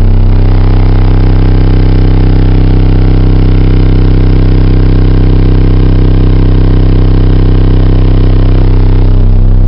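Eight 12-inch Pioneer Premier TS-W3002SPL car subwoofers playing one steady, held low bass note, heard inside the car cabin and so loud that the recording is overloaded and distorted.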